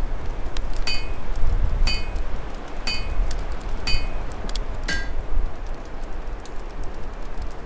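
Steady low rumble of storm wind with the light crackle of an open fire. Over it come five sharp metallic clinks about one a second, the last one lower in pitch.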